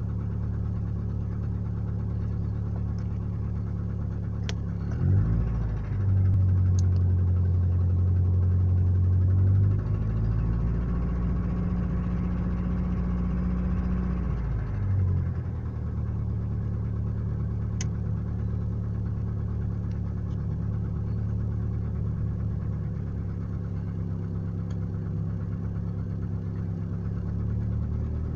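Mercedes-Benz 190's M102 four-cylinder engine running cold with a distinct high-pitched tapping from the valvetrain and timing area. The tapping is the sign of the cylinder-4 rocker-arm support having torn out its bolts and hanging on a single bolt. The engine speed rises about five seconds in and settles back to idle by about fifteen seconds.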